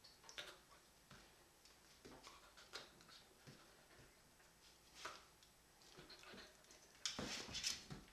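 Faint scattered rustles and taps of a kitten and a puppy pawing at each other through the slats of a wooden chair, with a louder burst of scuffling about seven seconds in.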